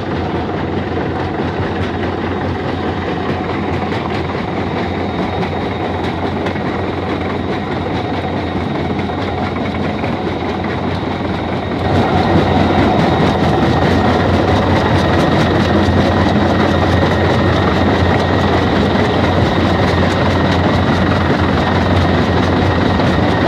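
Tesab 700i mobile jaw crusher running: a steady, heavy machine drone with rock knocking and clattering through it. It gets louder about halfway through.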